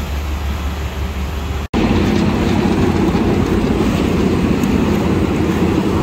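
Diesel engine of a Vögele Super 2100-2 asphalt paver running steadily, with a low hum. About two seconds in the sound cuts briefly, then becomes a louder, closer running of the paver's engine and paving machinery.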